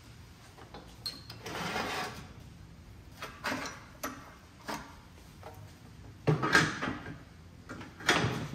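Workshop handling noises: irregular clatters, scrapes and rustles of hands working tools and parts on an engine on a stand, loudest about six seconds in and again near the end.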